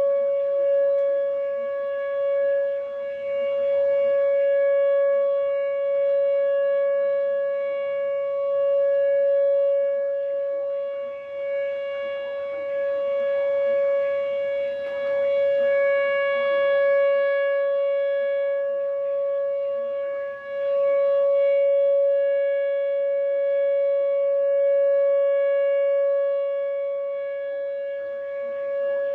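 Outdoor warning siren sounding a steady tone for a severe-weather alert, one unbroken pitch that swells and fades about every nine seconds.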